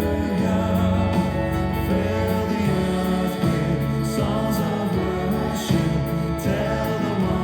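A hymn sung by a choir, in sustained, steady notes.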